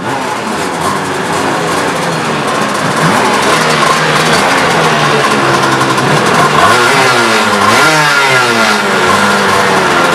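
Several racing kart engines running together, idling and being revved, with engine pitches rising and falling about seven to eight seconds in.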